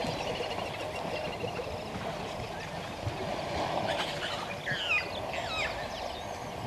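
Water sloshing and splashing as elephants bathe in a waterhole dam, with a few short whistled bird calls about four to six seconds in.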